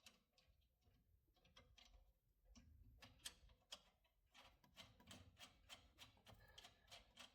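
Near silence with faint, quick clicks, sparse at first and then several a second from about halfway in.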